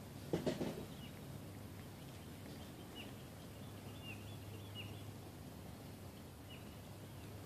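Small birds calling with short, sharp chirps every second or so over a steady low hum of outdoor ambience, with a brief louder sound about half a second in.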